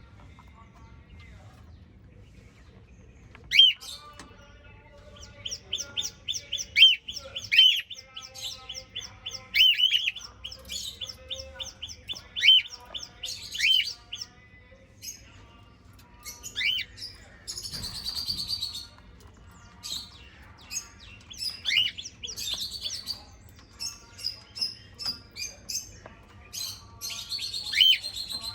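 Pet cockatiels and budgerigars chirping and chattering, starting about three and a half seconds in, with many quick repeated calls that rise and fall in pitch.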